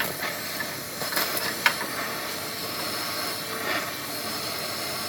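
Handheld gas torch hissing steadily as it heats a seized exhaust oxygen sensor, with a couple of sharp clicks about a second and a half in.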